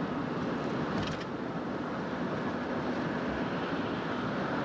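Steady road and engine noise from inside a moving car.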